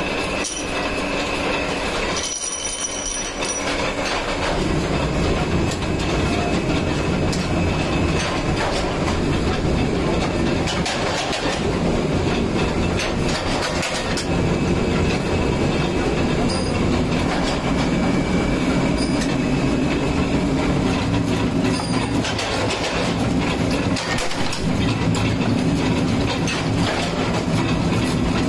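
Forge-shop machinery running without pause: a steady mechanical rumble with rhythmic metallic clatter and clanks, from the flywheel power press and the forge's electric blower.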